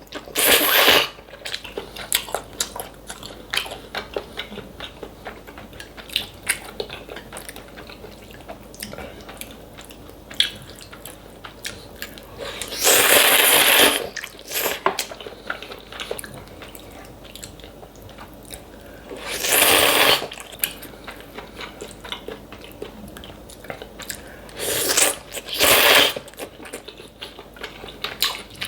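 Close-miked mukbang eating: steady chewing of kalguksu noodles, kimchi and gimbap, with small crunches and mouth smacks. Five loud noodle slurps of about a second each break in: one at the start, a longer one about halfway, and one a few seconds later.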